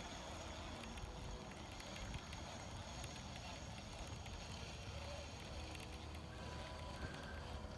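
Steady low outdoor background rumble with no distinct event, and a few faint thin tones near the end.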